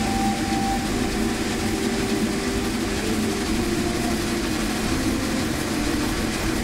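Cab noise of the 1928 Lima Shay geared steam locomotive #10 running: a steady mechanical rumble and hiss of the engine and running gear, with a few steady tones that shift in pitch.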